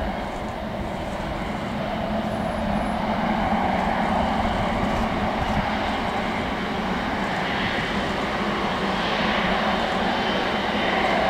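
Boeing 777's twin GE90 turbofans running at taxi thrust as the airliner turns on the runway: a steady jet roar with a whine that grows louder as the engines swing round to face the listener.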